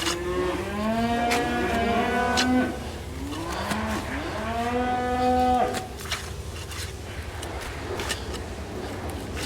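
Cattle mooing: two long moos of about two seconds each, the pitch rising at the start and then holding steady.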